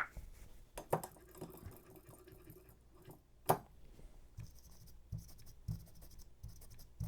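Light clicks, taps and scratching from hands handling small parts and tools at a workbench, with a sharper click about three and a half seconds in.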